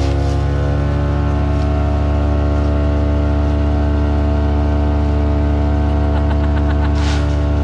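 Wood chipper's engine running steadily at a constant speed, with a brief rush of noise about seven seconds in.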